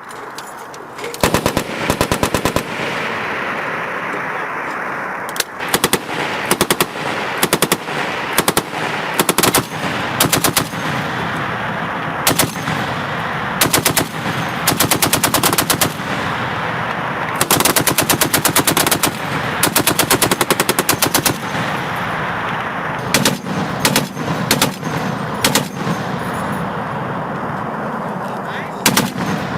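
Machine guns firing in bursts of rapid shots, some brief and some lasting several seconds, with a steady background noise between bursts.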